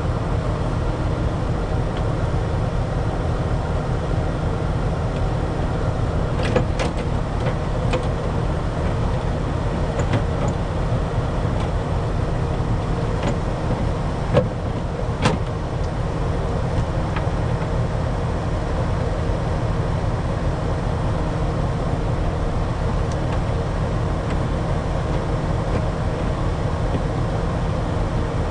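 Engine idling steadily, with a few light clicks and knocks of small parts being handled.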